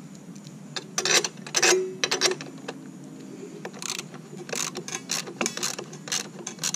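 Hand socket ratchet clicking in quick runs as it tightens the clamp-ring bolt on a pool light fixture, with a louder cluster of clicks and clinks of metal tools from about one to two seconds in.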